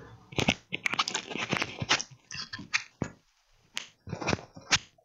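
Hands handling a laptop RAM module and small parts: a quick run of sharp clicks and rustles, then a few separate clicks near the end.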